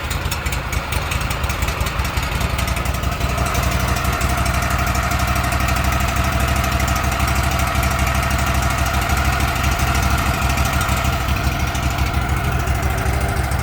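Wood-Mizer portable sawmill's engine running steadily under a demonstration, with a higher steady whine that comes in about three seconds in.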